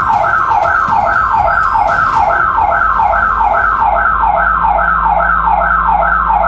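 Loud electronic security alarm siren sounding in rapid falling sweeps, about two and a half a second, without a break: the alarm has been triggered against intruders at the door.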